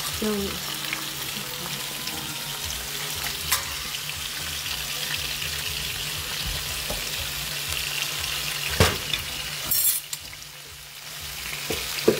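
Pieces of Guyana salmon shallow-frying in hot oil in a skillet: a steady sizzle, with a couple of sharp clicks along the way. The sizzle dips briefly near the end.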